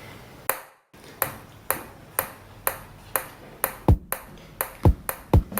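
A drum beat: sharp clicks about twice a second, joined from about four seconds in by deep kick-drum thumps that fall in pitch.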